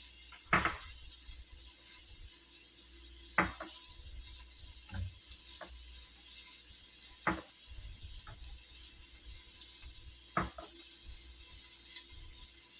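Chicken frying in oil in a hot pot, a steady sizzle, with about six sharp knocks of a utensil against the pot spread through it.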